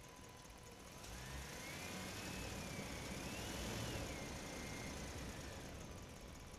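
A motor vehicle's engine passing by, swelling up about a second in and fading away near the end, its pitch rising and falling as it goes.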